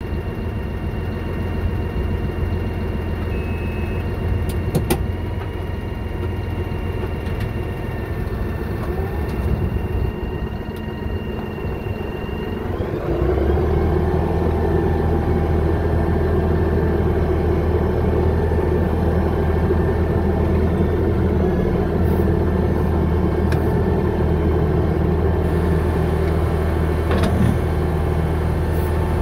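Engine of a machine fitted with a dozer blade, running at idle, then speeding up about 13 seconds in and running steadily faster and louder.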